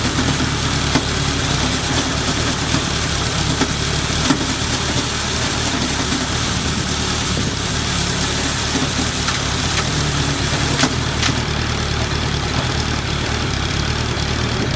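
Suzuki GSF1200 Bandit's air/oil-cooled inline four-cylinder engine idling steadily. It is a stable idle with no abnormal noise.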